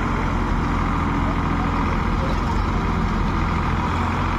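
Sonalika DI 740 tractor's diesel engine running steadily under load as the tractor pulls itself through deep paddy-field mud.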